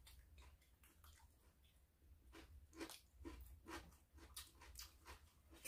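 Faint chewing and biting of raw vegetables, a string of soft, irregular crunches.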